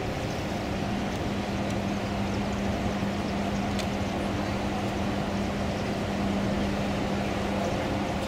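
Large container ship's engines and machinery droning as it passes, a steady hum held at one low pitch over an even rushing noise.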